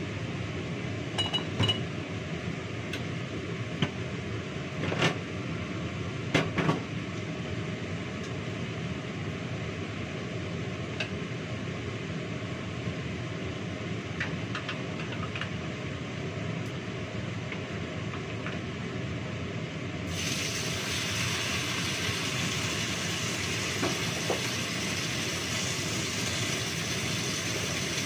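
Glass and dishes clinking and knocking a few times in the first seven seconds as a cooking-oil bottle and plates are handled, over steady kitchen background noise. About twenty seconds in, a loud steady hiss begins and keeps on.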